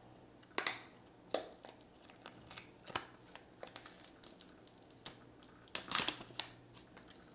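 Thin plastic protective film being peeled off a smartphone and handled, crackling and crinkling in short sharp snaps at irregular intervals. The film is a one-piece wrap covering both the front and the back of the phone.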